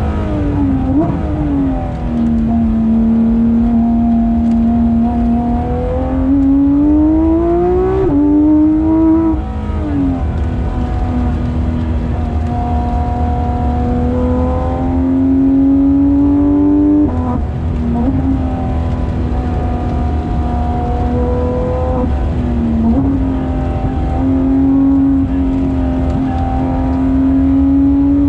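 Porsche 991.2 GT3 RS flat-six engine running hard under load, its note mostly held steady, climbing twice and dropping back sharply, over a constant low rumble.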